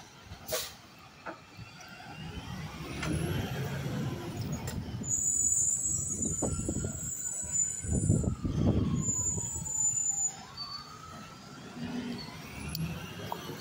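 Mack LR garbage truck's diesel engine running as the truck moves off down the street. It is loudest in the middle, with two bursts of hissing from the air brakes and a whine that falls in pitch as it slows.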